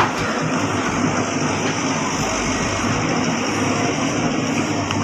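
Diesel engine of a 1995 Samsung excavator running at a steady speed.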